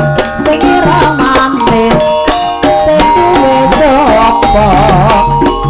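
Javanese dance-accompaniment music: quick hand-drum strokes and deep drum tones, ringing metallophone notes held as steady tones, and a wavering, ornamented melody line over them.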